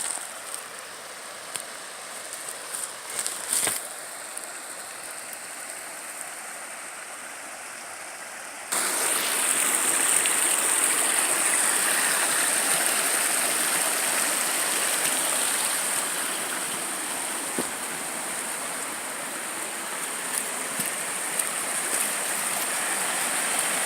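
Small forest creek running, its water rushing steadily. At first it is fainter, with a few short knocks or crunches; about nine seconds in it suddenly turns much louder and fuller.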